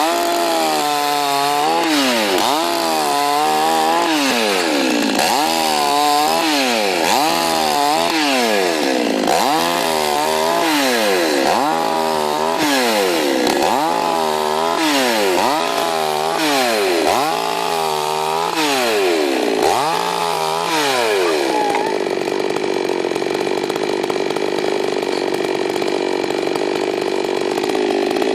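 Chainsaw mounted on a pivoting cutting bench, repeatedly revving up and dropping in pitch as it is swung down through small branches, about one cut every two seconds. Near the end it runs on steadily without cutting.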